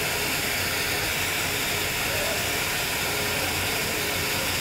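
Steady hissing noise of running machinery and ventilation in a ship's engineering space, with a low hum underneath.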